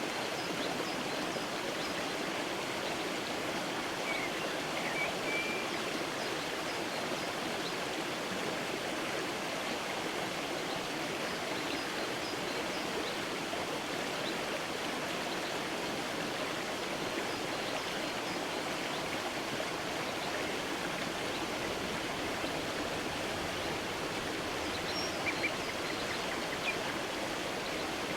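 Creek water flowing steadily under a stone bridge, an even rushing noise. A few faint bird chirps come through about four to five seconds in and again near the end.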